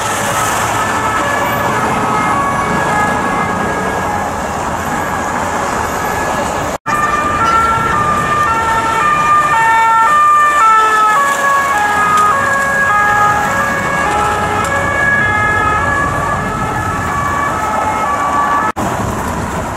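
Several police two-tone sirens sounding at once, each stepping back and forth between two pitches at its own rate, over city traffic and vehicle engines. The sound cuts out for an instant twice.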